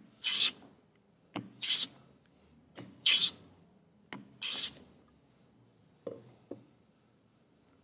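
Hand plane with a well-set blade taking four light shavings off a pine board, one stroke about every 1.4 s. Each stroke is a short shearing swish, preceded by a light click as the plane meets the wood. Near the end come two soft taps as a hand feels the planed surface.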